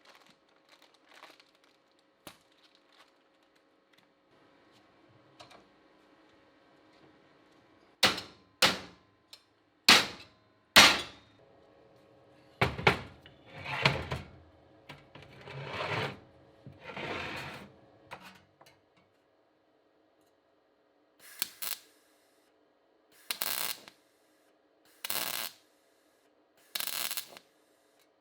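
Hand-tool work in a workshop: four sharp knocks, then a run of scraping strokes about a second long, and later four shorter strokes about two seconds apart.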